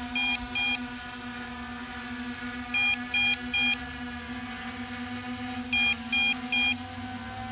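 MJX Bugs 5W quadcopter's low-battery warning: three short high beeps in quick succession, repeating about every three seconds over a steady hum. It is the alarm that starts when the flight battery drops to about 50%.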